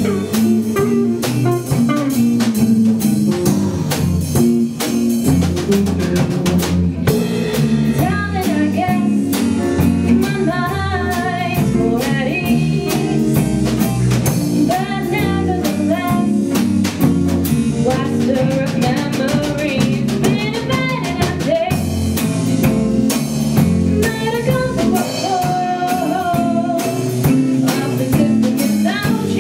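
Live small band playing a jazzy, bluesy tune: acoustic guitars strumming over a drum kit, with a woman's singing voice coming in about eight seconds in.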